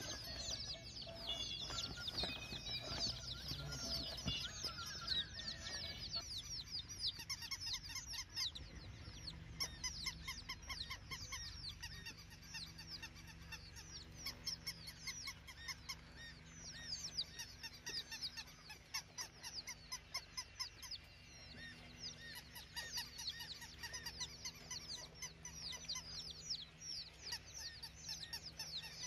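A flock of birds calling continuously, many short high calls overlapping one another, busiest in the first few seconds. A faint steady low hum runs underneath.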